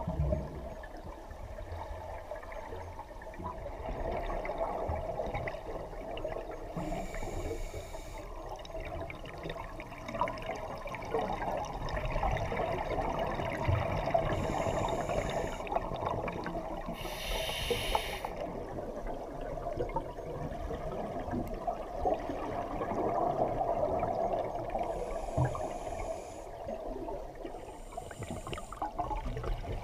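Underwater sound of scuba diving, muffled: a diver's regulator and its exhaled bubbles gurgling and rushing steadily, with a handful of short hissing breaths through the regulator every few seconds, the loudest near the middle.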